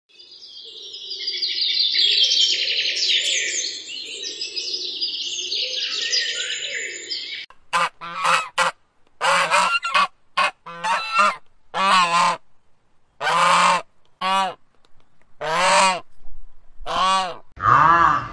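Flock of domestic geese: a dense clamour of many overlapping calls for about the first seven seconds, then a run of loud single honks, roughly one a second.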